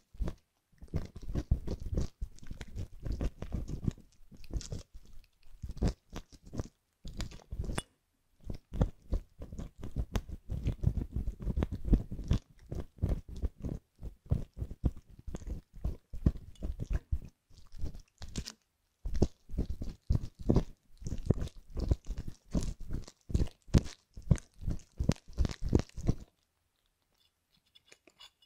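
A steel ear hook scraping inside the canal of a silicone ear model, right at the microphone: quick crackly scratching strokes in runs with short pauses, scraping out mock hardened ear debris. The scraping stops about 26 seconds in, and a few faint light clicks follow near the end.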